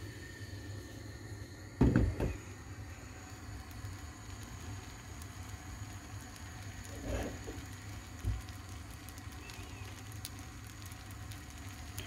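Gas stove burner running with a steady low rumble under a frying pan of cooking batter. About two seconds in, the pan thuds down onto the burner grate, and there are two softer knocks later on.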